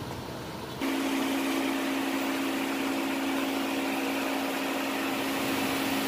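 A motor running with a steady hum and hiss, with no change in pitch. It starts abruptly about a second in.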